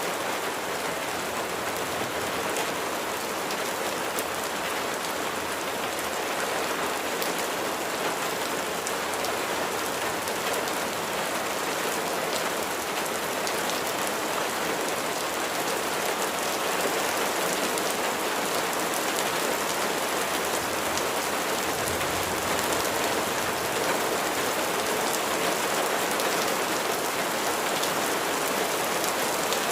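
Steady rain falling, a dense even hiss with scattered drops ticking on a surface, a little louder in the second half.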